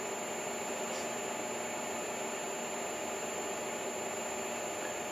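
Steady room tone: an even background hiss with a faint steady hum, and one faint tick about a second in.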